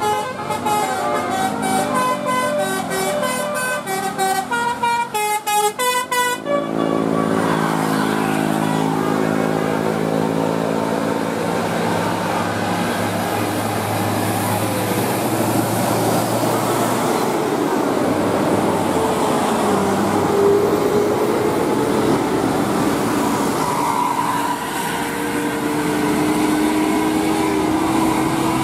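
Tour bus 'telolet' musical horn playing a quick tune of short notes at changing pitches, then a long steady deep horn blast starting about six seconds in, followed by road traffic noise as the bus passes.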